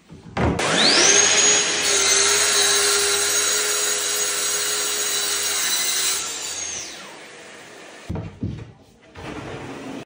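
An electric power tool spins up with a rising whine, runs steadily with a high whine for about six seconds, apparently cutting wood, then winds down. A few quieter knocks follow near the end.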